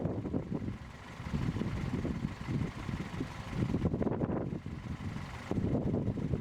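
Gusty wind buffeting the microphone: an uneven low rumble that swells and eases every second or so.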